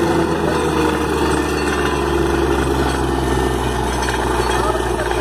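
Borewell drilling rig's engine running steadily, with water spraying up out of the borehole as the rig blows it clear with compressed air.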